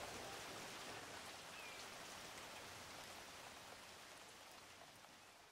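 Faint steady rain sound, an even hiss with fine ticks, fading away.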